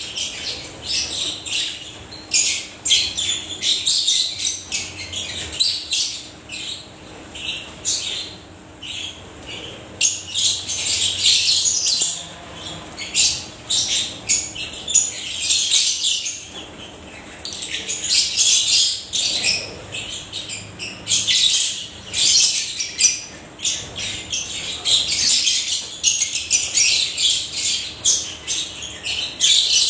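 A flock of African lovebirds chattering, with many high-pitched chirps and squawks overlapping without a break.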